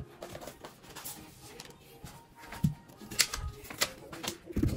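Small hands patting and tapping on drawer fronts and handling paper sticky notes: soft knocks and light rustles, mostly in the second half, with a few low thuds.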